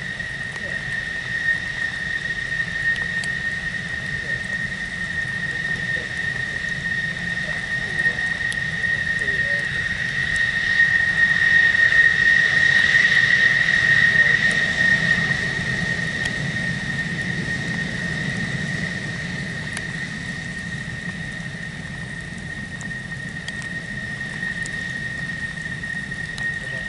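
High-pitched whine of F-16 jet engines running at idle on the ground, over a steady rush of engine noise. The whine holds one pitch and swells to its loudest about halfway through, then eases.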